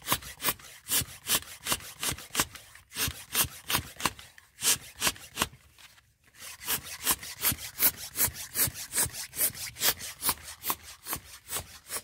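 Hand-operated bicycle tyre pump worked in quick, even strokes, about three a second, each stroke a puff of air through its hose blowing dust out of holes drilled in the base of a brick wall. The pumping breaks off briefly a few times in the middle.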